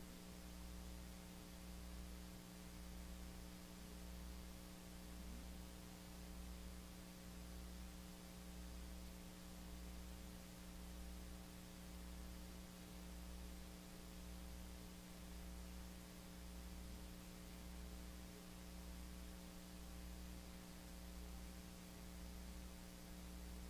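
Faint steady hum with hiss and no speech; its deepest part throbs about once a second.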